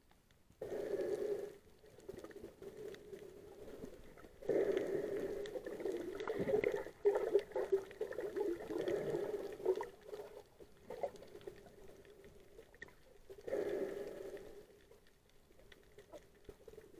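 Muffled underwater bubbling and water movement heard by an underwater camera, coming in bursts: a short one about a second in, a long one from about four and a half to ten seconds in, and another near fourteen seconds.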